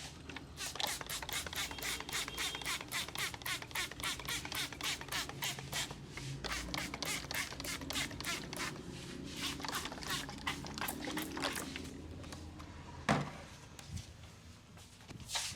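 Rapid rhythmic hand strikes of a barber's massage, about five sharp slaps a second, stopping about twelve seconds in, followed by a single loud sharp slap or crack a second later.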